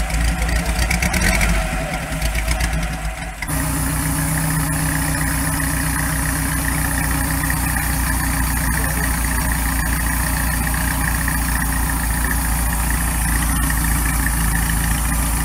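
Windhoff 750's oil-cooled 746 cc inline four-cylinder engine idling steadily. The sound changes abruptly about three and a half seconds in, and the idle then runs even and unchanging.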